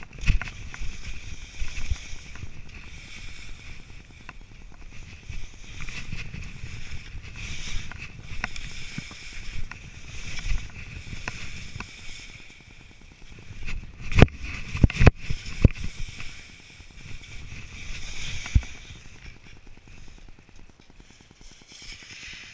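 Skis sliding and scraping over snow, picked up close by a head-mounted action camera, with scattered sharp knocks and a tight cluster of louder knocks about fourteen to fifteen seconds in.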